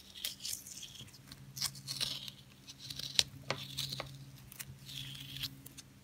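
Washi tape being peeled off watercolor paper: short tearing and crinkling noises as the strips come away, broken by scattered small clicks.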